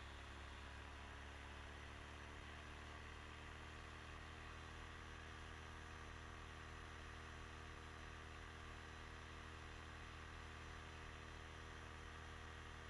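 Faint, steady drone of a small engine and propeller running at constant throttle, heard from the pilot's seat of a paramotor.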